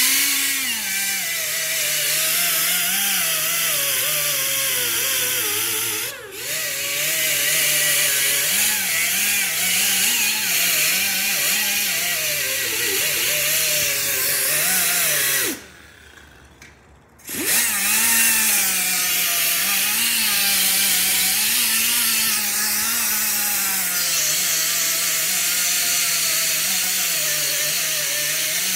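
Pneumatic die grinder running against a small metal fender: a hissing whine whose pitch wavers as the tool is pressed into the metal and eased off. It dips briefly about six seconds in, stops for about a second and a half past the middle, then starts up again.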